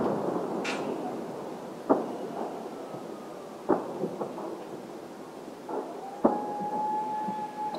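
Distant fireworks salute: three sharp bangs about two seconds apart, with smaller pops between them and a steady whistling tone near the end.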